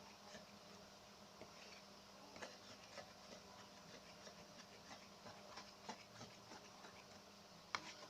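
Slime mixture being stirred in a container, heard faintly as scattered small clicks and taps of the utensil, with one sharper click near the end, while the mixture is thickening.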